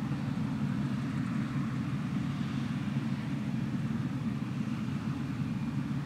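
Claas Dominator 108 combine harvester running steadily while harvesting wheat: a constant low drone with a fainter hiss above it.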